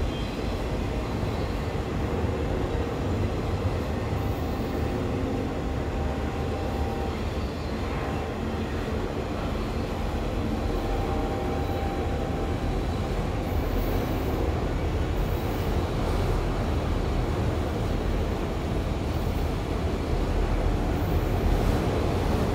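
Norfolk Southern freight train of multilevel autorack cars rolling past: a steady rumble of steel wheels on the rails.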